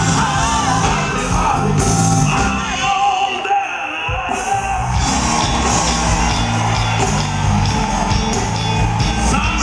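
Live soul/R&B band with a male lead singer at full volume, over keyboards and a heavy bass line. About three seconds in the bass and low end drop out for roughly a second, then the full band comes back in.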